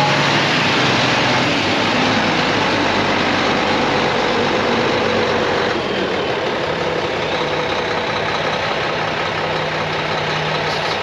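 Mack E7 inline-six diesel of a Mack CH613 truck idling steadily, a low even drone; its sound shifts slightly about six seconds in.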